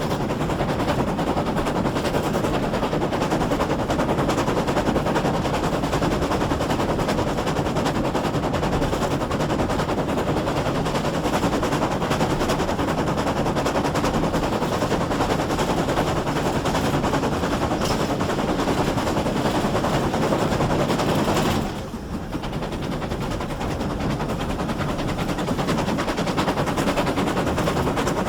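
GWR 6400-class 0-6-0 pannier tank steam locomotive no. 6412 running at speed, heard from on board the train: a dense, continuous rapid clatter of exhaust and running noise. About three-quarters of the way through, the sound drops suddenly and then builds back up over a few seconds.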